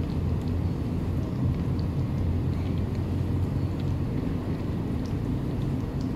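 A steady low rumble, with a few faint clicks from a cat chewing and licking wet cat food off a plastic tray.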